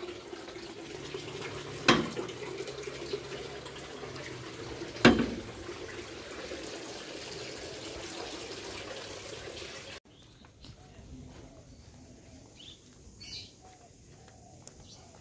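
A steady rushing noise, like running water, with two sharp knocks about two and five seconds in. It cuts off abruptly to quieter ambience with a few short chirps.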